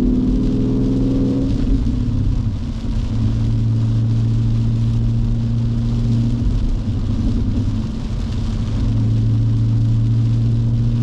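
2019 Mustang GT's 5.0-litre V8 through an MBRP cat-back race exhaust, heard from inside the cabin. The engine note shifts pitch in the first second or two, then runs steadily at cruise. Rain hisses on the car throughout.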